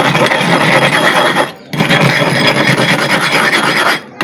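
Sharpening stone being rubbed hard against an abrasive surface to flatten its dished, worn-down centre: a loud gritty scraping in long strokes, breaking off briefly about a second and a half in and again near the end.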